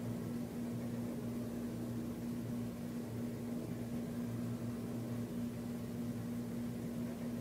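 Steady room hum from a running machine: a constant low tone over an even hiss that does not change.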